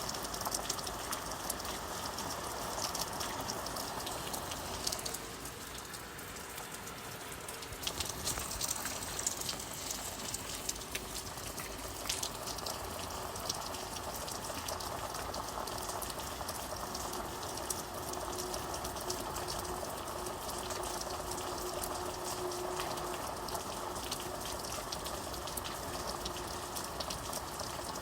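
Steady rain falling, a continuous hiss with the patter of many individual drops, easing slightly for a few seconds about five seconds in.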